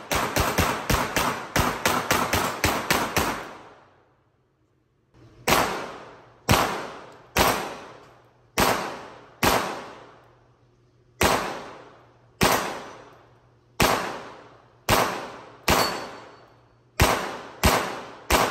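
Semi-automatic pistol fire echoing off concrete walls. A fast string of about a dozen shots comes in the first three seconds, then after a short break a slower string of single shots follows, about one a second.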